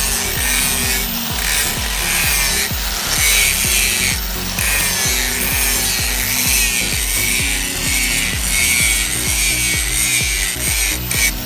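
Angle grinder with an abrasive disc grinding the rusty steel head of an old cross peen hammer: a steady motor whine under the hiss of the disc cutting metal.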